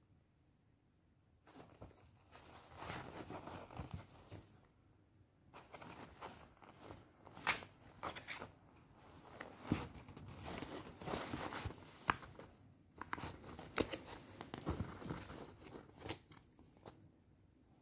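Small cardboard box rustling, scraping and crunching in irregular bursts with sharp clicks as a kitten scrabbles and rolls about inside it and mouths its edges. The sounds start about a second and a half in.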